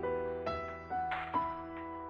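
Slow, gentle background music of held notes, a new note starting about every half second.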